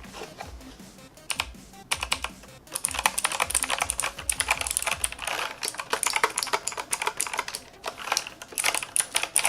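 E-Element Eagle Z77 mechanical keyboard with clicky Outemu blue switches being typed on. A few scattered key presses come first, then fast continuous typing from about three seconds in, each key giving a sharp click.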